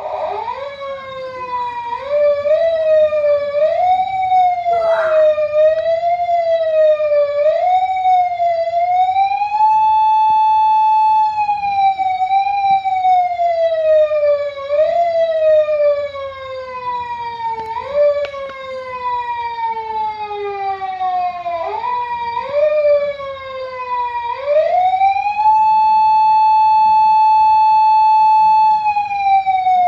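Electronic police-siren sound from a radio-controlled police car's siren unit, switching on abruptly and running through several patterns: a fast up-and-down warble, long falling sweeps that snap back up, and a rising wail held steady for a few seconds near the end.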